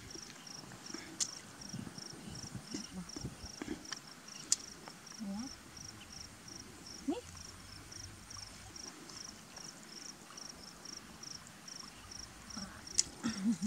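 Insect chirping steadily at a high pitch, about three chirps a second, with a few sharp clicks now and then.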